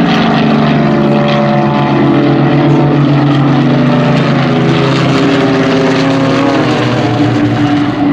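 Piston engines of Zlin Z-50 aerobatic propeller planes droning steadily in flight, the engine note sliding up and down in pitch for a couple of seconds past the middle as the planes manoeuvre.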